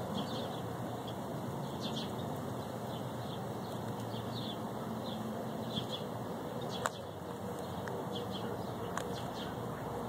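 Birds chirping in short, high, repeated calls over a steady outdoor background hum, with a few sharp clicks, the clearest about seven and nine seconds in.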